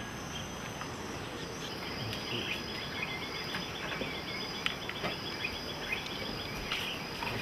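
Insects chirring steadily in high thin tones, with a fast pulsing chirp joining about two seconds in, over a steady background hiss; a few faint clicks.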